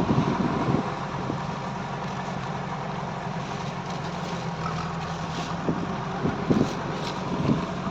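An engine running steadily at idle, with a few short knocks near the end.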